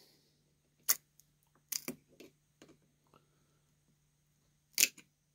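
Sharp metal clicks and taps of a small screwdriver working on a chainsaw carburetor as it is taken apart, scattered irregularly, with the loudest click near the end. A faint steady low hum runs underneath.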